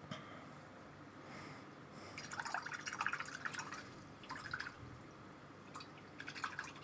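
A paintbrush swished and tapped in a jar of water, with small splashing and dripping sounds in a run from about two to four seconds in, and shorter bursts again later.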